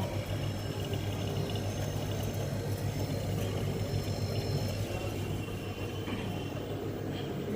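Deep freezer's hermetic compressor running with a steady low hum after its R-290 gas charge.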